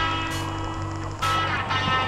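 Rock music with guitar, its chords changing about every second and a quarter.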